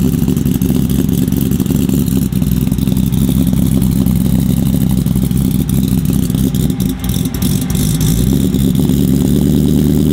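2018 5.0 L Coyote V8 with a 3.8 L Whipple supercharger, in a first-gen Ford Lightning, idling steadily through long-tube headers and a side-exit muffled exhaust. It is not yet tuned and is pouring a lot of fuel, running rich.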